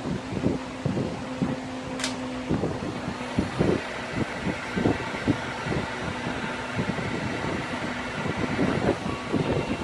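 Heat gun running: a steady motor hum with irregular low rumbling from its airflow, and a single sharp click about two seconds in.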